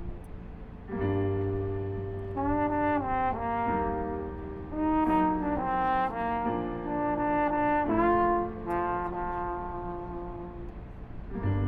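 Drum corps brass line playing a slow, sustained chorale: the full section swells in about a second in, with moving melody and inner lines over a held low bass note, then eases off near the end.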